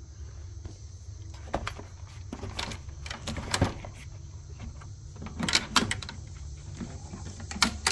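Scattered clicks and knocks of tools and a tool case being handled, then the metal drawer of an old Craftsman tool chest sliding open in the second half, over a steady low hum.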